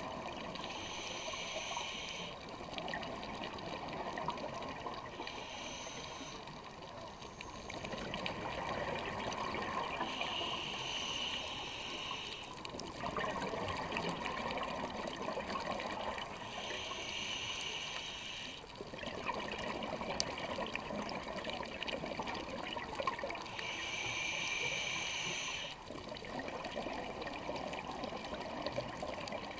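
Scuba diver breathing through a regulator, heard underwater: a hissing inhale about every six seconds, each followed by a bubbling rush of exhaled air.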